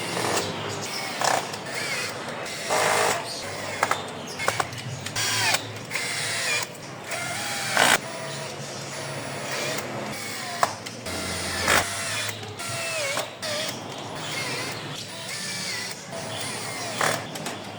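Irregular mechanical clicking and rattling in short bursts, mixed with short chirps from small parrots.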